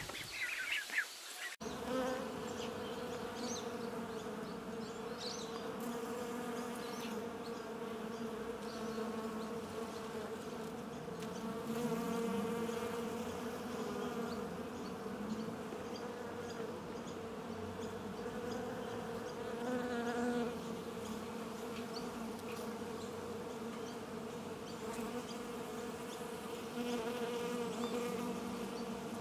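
Flying insects buzzing in a steady, low droning hum that wavers a little in pitch, starting after a sudden cut about a second and a half in.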